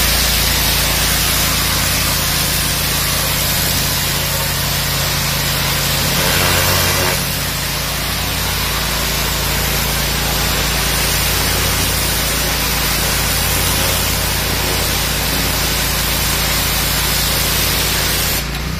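High-pressure water jet from a Euromair Europrolav 22-500 pressure washer lance hissing steadily onto concrete, over the steady hum of the washer's 34 hp Vanguard V-twin engine.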